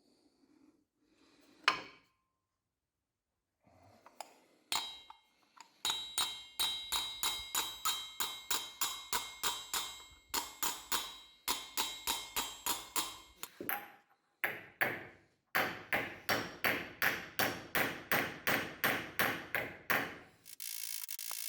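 Hammer blows on metal in long, even runs of about four strikes a second, each with a metallic ring, as a small lamp dish is hammered into shape. A single sharp knock comes about two seconds in, and a steady mechanical whir starts near the end.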